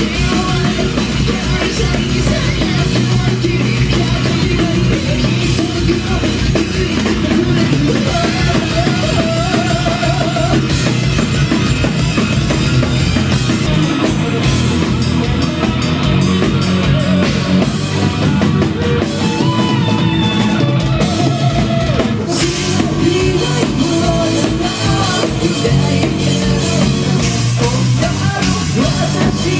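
Rock band playing live: electric guitars over a drum kit, loud and unbroken.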